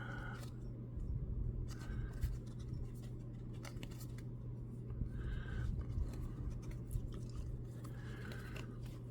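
Baseball trading cards and their foil pack wrappers being handled: light rustling, sliding and small clicks of card stock, over a steady low hum.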